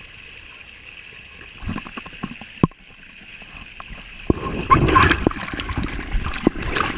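Water splashing and rushing, with a run of knocks and bumps that grows louder after about four seconds, muffled by a waterproof camera case.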